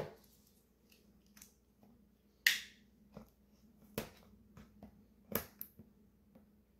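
Faint clicks and ticks with one short scratchy rasp about two and a half seconds in, from a knife blade being worked into the seam of a cardboard-and-clear-plastic pen box to cut it open.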